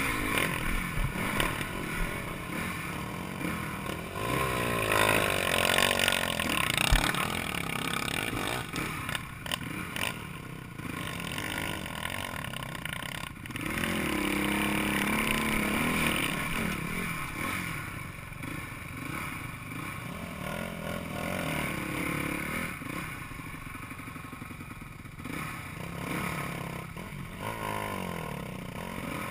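Dirt bike engine running at low speed, revving up and dropping back repeatedly while picking its way up a loose rocky trail, with rocks clattering and scraping under the tyres.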